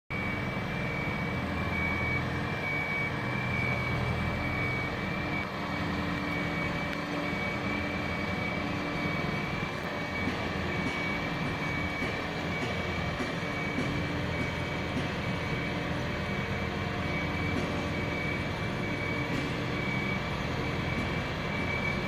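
Ascom RTG 40+40 rubber-tyred boat hoist driving, its engine running at a steady low hum. A continuous high-pitched tone sits over the engine.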